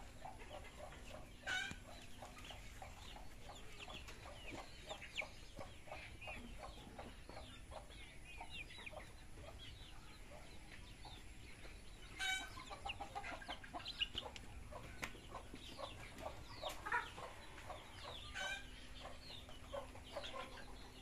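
A flock of brown hens clucking and calling, with a few louder squawks standing out now and then.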